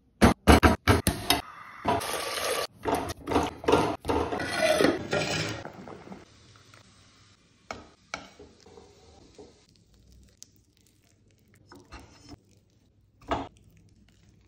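Kitchen handling sounds of cooking raw mangoes: a quick run of sharp knocks and clatter against the board and pot, then a few seconds of noisy hissing and scraping. After that come a few soft taps and squelches as the boiled, softened mango is set in a clay dish and peeled by hand.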